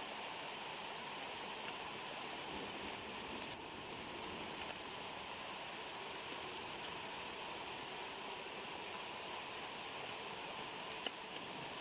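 Thunderstorm rain falling steadily on the nest, a constant hiss with scattered drop ticks and one sharper tick near the end.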